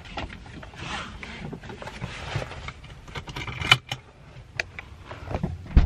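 Small clicks and knocks inside a parked car over a low steady rumble, with a sharp thump near the end.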